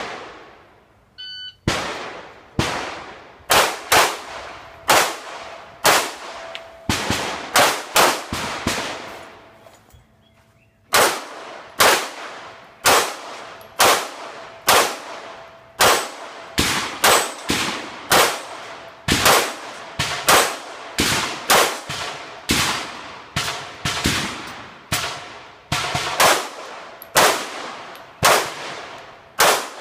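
Firearms shooting in a rapid, uneven string, often more than one shot a second and some overlapping, each trailing off in an echo; a short pause about ten seconds in.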